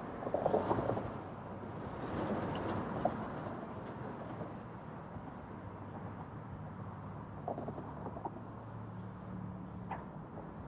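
A car driving: steady road and engine noise with a low hum, louder for a moment twice in the first three seconds, with a few light clicks and knocks.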